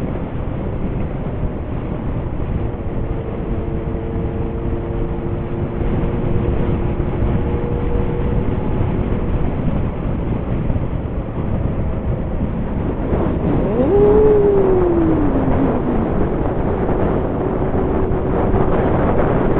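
Kawasaki Zephyr 750's inline-four running through an MRS muffler fitted with a louder inner silencer while being ridden, under heavy wind noise on the microphone. About two-thirds through, the engine note rises quickly and then falls away as the sound gets louder.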